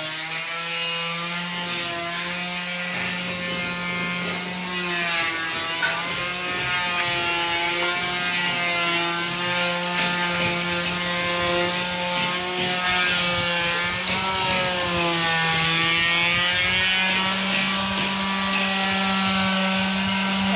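Electric power tool motor running continuously, its whine drifting slowly up and down in pitch, over a steady low hum.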